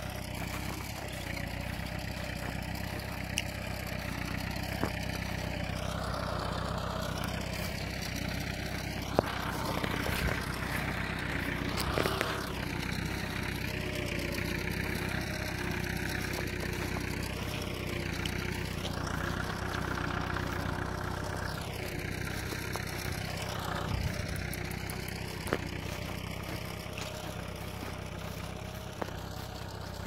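Tractor engine running steadily while ploughing, its tone slowly sweeping up and down as the tractor moves; a few light clicks.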